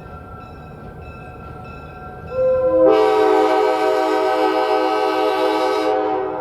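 Locomotive K5LA five-chime air horn sounding one long blast over a low rumble. It starts with a single note for about half a second, then opens into the full chord.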